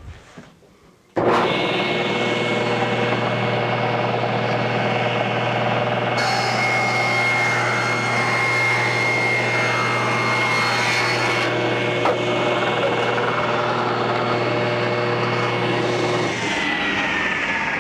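Table saw running with a steady hum and whine that starts abruptly about a second in. From about six seconds in, the blade rips lengthwise through a thick hardwood board for about five seconds, adding a harsher, higher cutting noise. Near the end the saw is switched off and its whine falls as the blade spins down.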